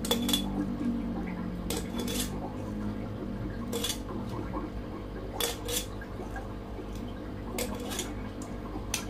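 Metal kitchen tongs clinking against a glass jar and a steel pot while mango slices are packed into the jar: sharp clinks come in small clusters every second or two.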